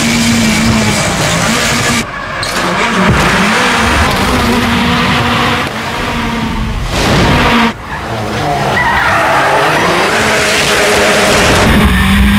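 Turbocharged four-cylinder engine of a Ford Fiesta rallycross car revving hard as it drifts, with tyres squealing. The sound drops out suddenly for a moment twice.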